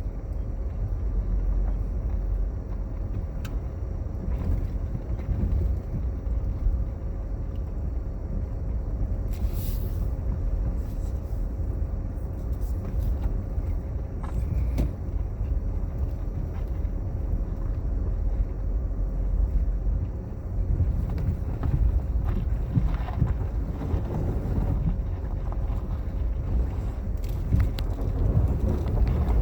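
Steady low rumble of a vehicle driving, heard from inside the cab, with a faint steady hum through most of it and a few small knocks.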